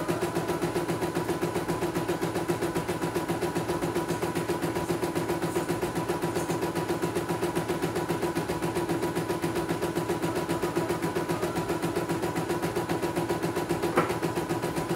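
CNY E900 computerised embroidery machine stitching a design, its needle working in a rapid, even rhythm over a steady motor hum, with one sharp click near the end.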